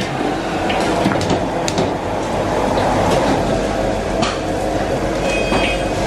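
Steady roar of gas wok burners on a commercial range, with a few light clinks of metal cookware.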